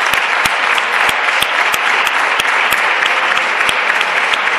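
Applause from a group of seated parliamentary deputies clapping steadily, with a few sharp individual claps standing out close by.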